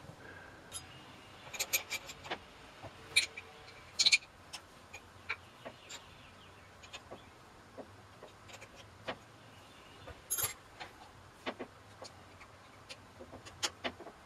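Scattered metal clicks and clinks of a hex wrench working at a lathe's compound slide and quick-change tool post as it is unbolted, at irregular intervals with a louder clink about ten seconds in.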